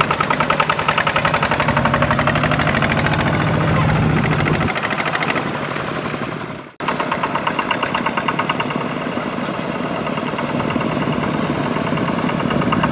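Single-cylinder diesel engine of a two-wheel walking tractor running under load as it hauls a trailer of rice sacks through mud: a fast, even chugging. The sound drops out abruptly about seven seconds in, then the chugging picks up again.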